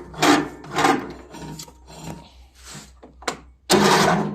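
Electric starter of a 17.5 hp Briggs & Stratton mower engine grinding as it tries to turn the engine over. The engine turns in slow, laboured strokes about two a second and stalls against compression, with a longer burst near the end. The owner takes this for the usual sign that the valves need adjusting.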